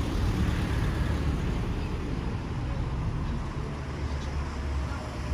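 Steady low rumble of a motor vehicle running, with road noise.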